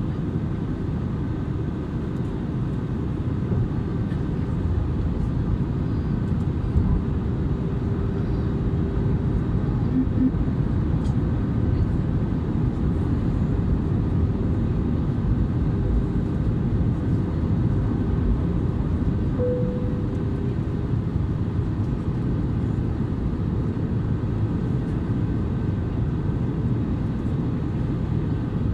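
Airbus A320neo cabin noise during the descent toward landing: a steady low rumble of airflow and engines that holds at an even level.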